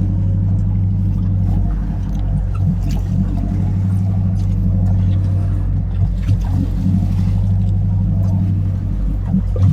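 Fishing boat's engine running steadily, a constant low drone with an even hum and no change in speed.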